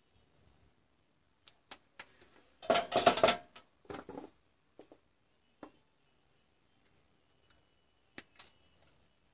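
Hand tools clicking and clattering on a wooden workbench as pliers are picked up and handled: a few light clicks, a louder rattle of metal tools about three seconds in, and two sharp clicks near the end as the pliers work the wire between the cells.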